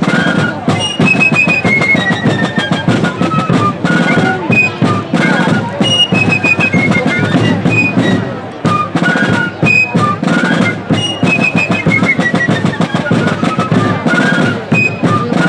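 Fife and drum corps playing a tune: shrill fifes carry a high melody with running, falling phrases over a steady beat of snare and bass drums.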